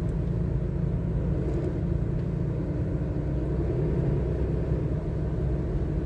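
Steady low rumble of a car heard from inside the cabin, its engine and tyres running at low speed through shallow floodwater on the road.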